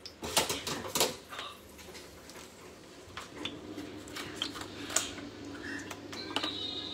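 Kitchen clatter of pots and utensils on a stovetop: a few loud knocks about half a second to a second in, then scattered light clicks and ticks.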